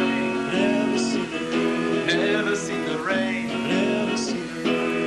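Live band music with guitar: layered, held notes, some of them gliding in pitch, at a steady level.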